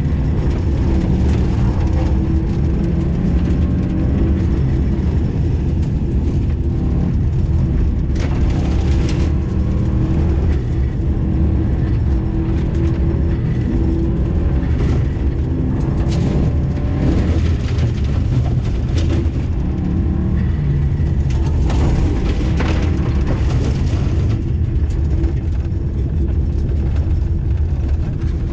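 Rally car heard from inside the cabin on a snowy, icy dirt road: engine running with its pitch rising and falling as the car speeds up and eases off, over steady tyre and road noise, with a few short hissing sprays from the road under the car.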